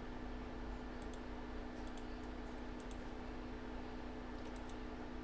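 Faint scattered clicks, a few at a time, over a steady low electrical hum.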